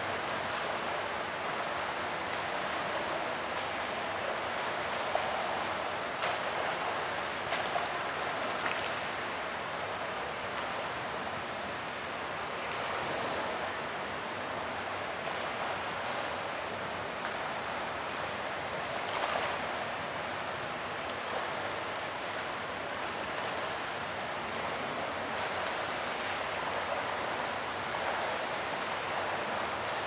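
Fountain water splashing steadily, an even rushing noise with a few brief louder splashes about a fifth of the way in and again about two-thirds through.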